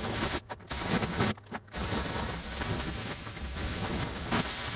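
Pressure washer jet spraying onto stone patio slabs: a dense hiss of spray that cuts out briefly twice in the first two seconds, then runs on steadily, over a low steady hum.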